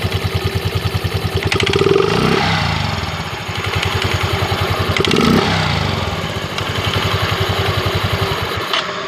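Yamaha Mio M3 scooter's single-cylinder four-stroke engine, just started with the CVT cover off, running with an even pulsing beat and revved up briefly twice, about two and five seconds in. The pulsing stops near the end.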